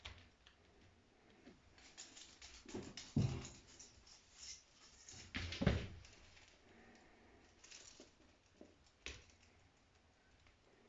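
A cat at play: irregular scuffling and tapping with a few heavier thumps, loudest about three seconds in and again near six seconds.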